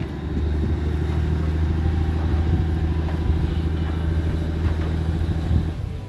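Passenger ferry's engine running, a steady low drone that starts just after the beginning and cuts off near the end.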